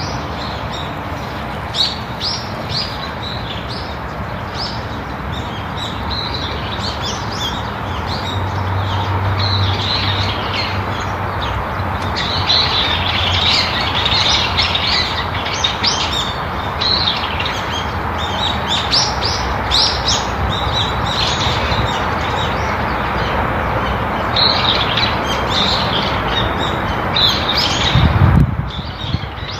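Small birds chirping repeatedly, many short high calls over a steady background hiss. About a second before the end the sound cuts abruptly to a quieter background.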